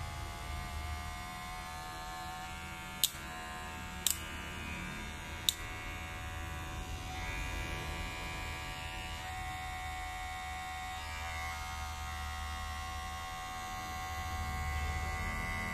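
A new Kemei cordless hair clipper's motor and blade running with a steady hum, taken to have plenty of power and a noticeable vibration. Three sharp clicks come a few seconds in, and a higher note joins the hum about halfway through.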